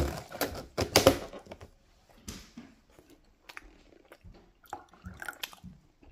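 Clear plastic food tub handled and its lid pressed shut, with sharp plastic clicks in the first second or so, followed by quieter chewing sounds.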